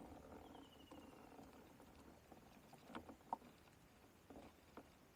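Near silence, with a few faint short clicks or knocks about three seconds in and again near the end.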